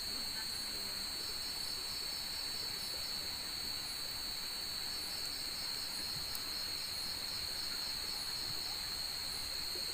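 A chorus of night insects chirring steadily in a high, continuous drone with a faint regular pulse.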